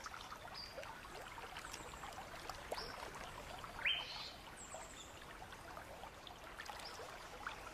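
Faint creek ambience: water trickling and lapping with many small drips, and a few short high bird chirps scattered through, one a quick rising call about four seconds in.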